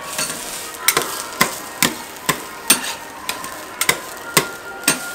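Two metal spatula blades chopping down onto a flat jianbing griddle: sharp metallic clacks, about two a second, starting about a second in, over a steady background hiss.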